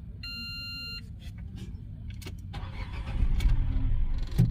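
A short electronic beep, then a Renault car's engine cranks and catches about three seconds in, starting cleanly now that its rat-chewed fuel injector wiring has been repaired.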